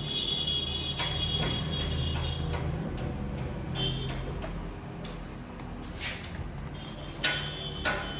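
Sharp metallic clicks and knocks as the aluminium bottom case of a MacBook Pro is handled and set back onto the laptop, several of them in the last couple of seconds. A steady high-pitched electronic tone sounds during the first two seconds or so, briefly again near the middle, and once more near the end, over a low steady hum.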